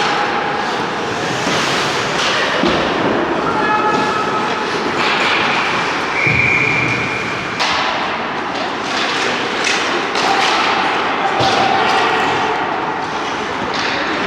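Ice hockey game in a rink: skates scraping the ice, with dull thuds against the boards and scattered shouts; a brief high steady tone sounds about six seconds in.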